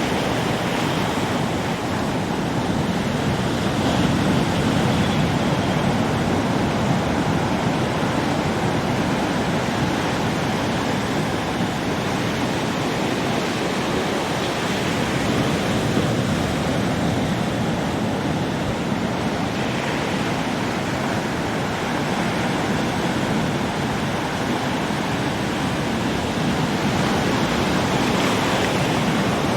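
Ocean waves breaking on a beach: a continuous wash of surf that swells and eases slowly.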